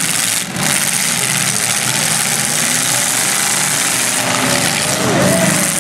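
Engines of several straight-stock demolition derby cars running together in a steady, loud din, with a wavering pitch rising near the end.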